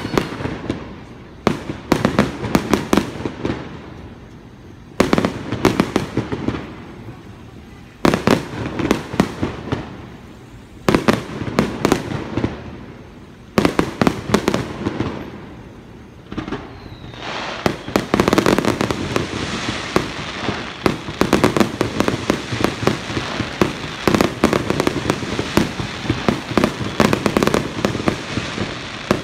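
Aerial fireworks shells bursting, each sharp bang followed by a spell of crackling, a few seconds apart. From about 17 seconds in, the bursts come thick and fast as one continuous run of bangs and crackling.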